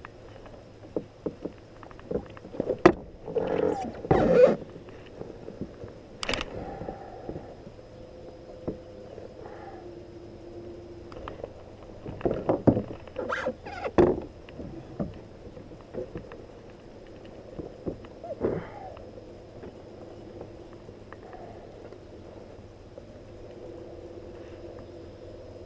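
Irregular knocks, clicks and thuds of gear being handled in a pedal kayak, with a few louder scuffling bursts, the loudest a few seconds in and again around the middle.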